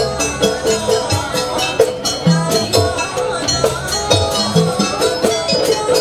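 Live jaranan music from the accompanying ensemble: drums beating a steady, quick rhythm under repeated pitched melodic notes.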